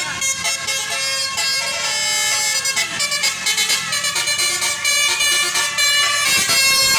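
Tour bus's Basuri multi-tone telolet horn playing a melody of several steady tones, chopped into rapid pulses in the second half.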